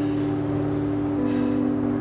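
Electric guitar through a small combo amplifier, holding a steady ringing chord; another, slightly lower note joins about a second in.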